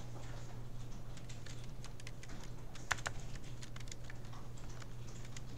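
Typing on a computer keyboard: light key clicks at irregular spacing, a few louder around the middle, over a low steady hum.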